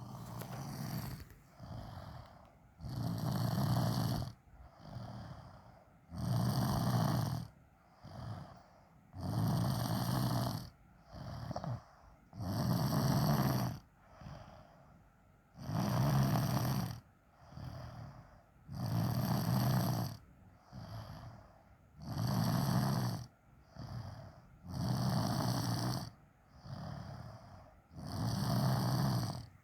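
A person snoring heavily. A loud, rasping snore comes about every three seconds, nine in all, with a softer breath between each.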